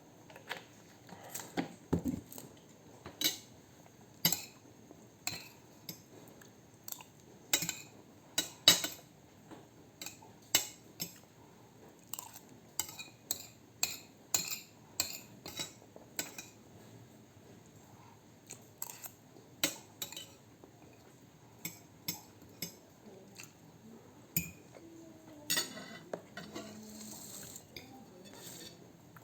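Metal cutlery clinking and tapping against a plate in short, irregular knocks, often a few a second, as food is scooped up.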